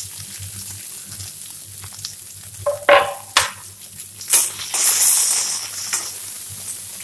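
Chopped onion, green chilli and curry leaves frying in hot oil in a kadai, a steady sizzle. A metal spatula stirs and scrapes against the pan, with a few sharp clinks about three to five seconds in.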